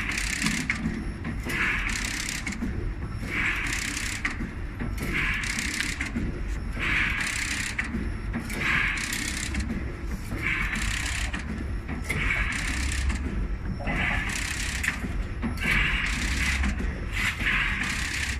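Hexagonal wire mesh weaving machine running, its weaving cycle making a mechanical rattle that repeats about once a second over a steady low hum.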